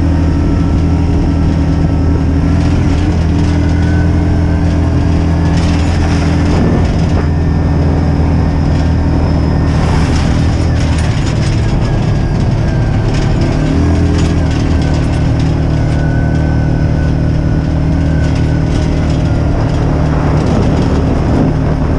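Vehicle engine running steadily and close, its note shifting briefly about halfway through, with a few short clatters.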